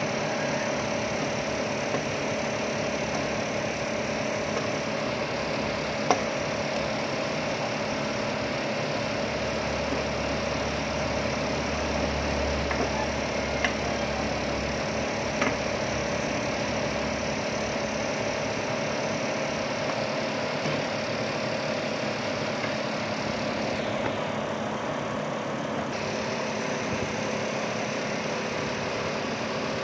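Chopped pork intestines sautéing in a stainless steel pot: a steady sizzle under a constant low hum, with a few sharp clicks of the wooden spatula against the pot.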